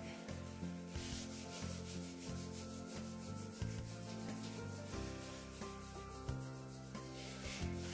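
Hands rubbing and massaging the ankles in repeated strokes, over soft background music with sustained low notes.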